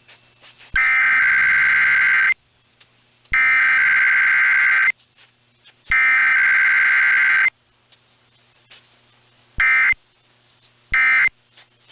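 Emergency Alert System data tones broadcast over the radio for a weekly test: three long, shrill digital data bursts about a second apart, the alert header, then two short bursts near the end, the start of the end-of-message code.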